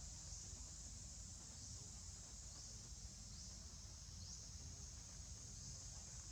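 Insects droning faintly and steadily in a high pitch, with short rising chirps about once a second, over a low rumble.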